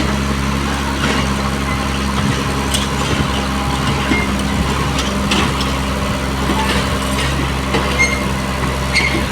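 Excavator's diesel engine idling steadily, with a few light clicks over it.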